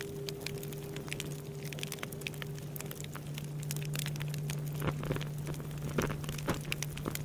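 A large Buddhist temple bell humming a steady low tone as it rings out, over the irregular crackling and popping of a wood bonfire.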